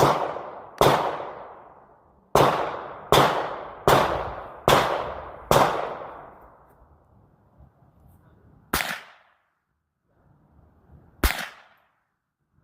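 .22 rifle fired in quick succession: about six sharp shots roughly 0.8 s apart, each trailing off in an echo. Then two quieter single cracks follow, several seconds apart.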